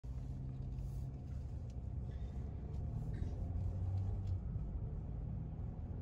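Steady low rumble of a car's engine and tyres heard from inside the cabin while driving.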